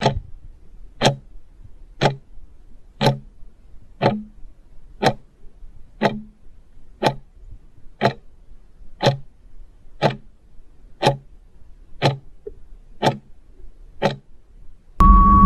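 Quiz countdown timer ticking like a clock, one tick a second, about fifteen ticks. Near the end a loud noisy sting with a steady beep cuts in as the time runs out.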